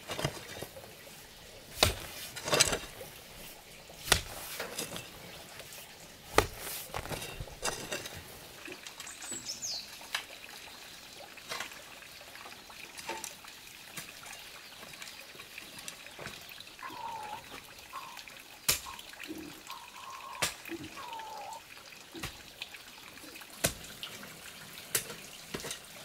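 A hoe chopping into loose soil: a sharp thud every second or two, with dirt crumbling and scraping between strokes.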